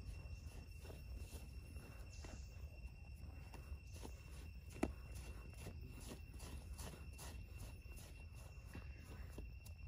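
Bare hands scraping and scooping dry sandy soil: a faint run of soft, irregular scratches and crumbles, with one sharper knock about five seconds in. A steady high-pitched insect call runs behind it.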